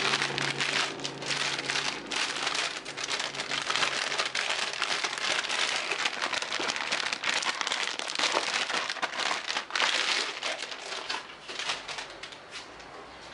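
Crinkling and crackling of a metallic anti-static shielding bag being handled. It thins out near the end.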